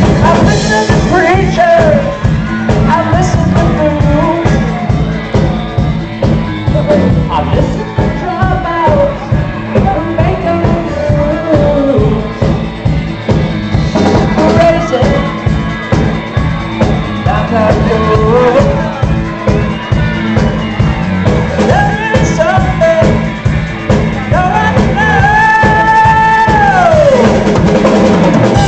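Live rock band playing loud: lead vocals over electric guitars, bass and a drum kit keeping a steady driving beat. Near the end a long high note is held and then slides down in pitch.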